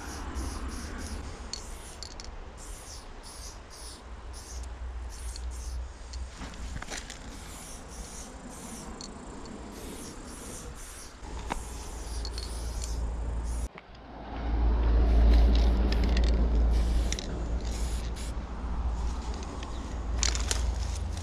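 Aerosol spray-paint can hissing in many short bursts as lines are sprayed onto a brick wall. Under it runs a steady low rumble, which grows louder for a few seconds about two-thirds of the way through.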